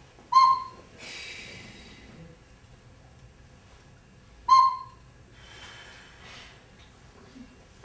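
Two short, clear whistle-like notes blown on a small wooden pipe or flute, about four seconds apart. Each is followed by a long breathy exhale. Together they imitate slow puffs on a hookah.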